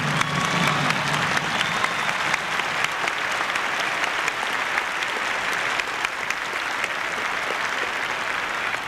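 Large audience applauding steadily at the end of a skating number, with the last of the show music dying away right at the start.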